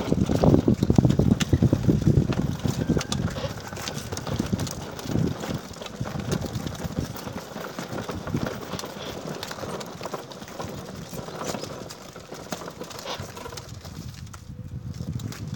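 Plastic ride-on toy car rattling and clattering as its hard plastic wheels roll over brick paving, a fast run of irregular knocks that is loudest in the first few seconds and then eases off.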